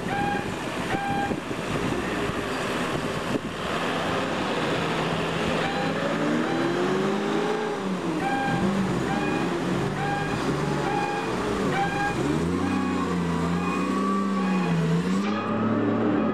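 Forklift's engine revving up and down as it manoeuvres, with a beeper sounding in short repeated beeps about twice a second while it backs away.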